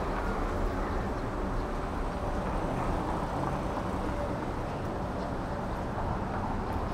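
Steady street ambience: road traffic running along the street beside the walkway, an even rumble with no single standout event.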